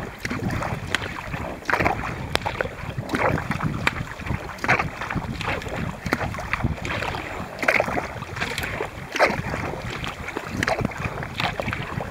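A sea kayak moving fast through calm water, with a steady rush of water along the hull. Rhythmic splashes come about twice a second as the paddle blades dip in on alternate sides. There is some wind on the microphone.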